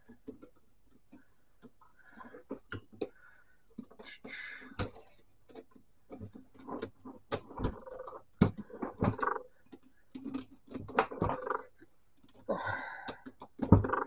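Metal and plastic parts of a Smith-Corona electric typewriter's mechanism clicking, snapping and scraping as they are pried apart with a screwdriver, with irregular sharp clicks throughout and spells of scraping and creaking.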